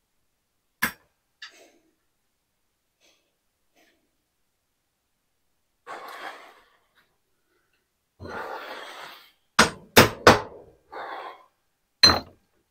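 Sharp knocks and clanks of hand tools and bolt hardware while a steel beam is being bolted up overhead: one knock about a second in, some scraping and rustling of handling, then three loud knocks in quick succession and one more near the end.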